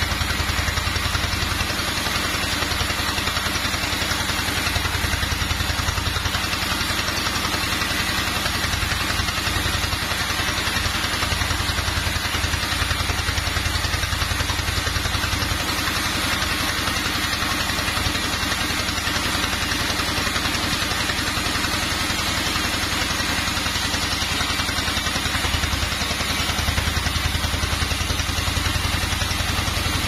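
Sawmill band saw and its drive running steadily, a constant low hum under a broad hiss with no pauses.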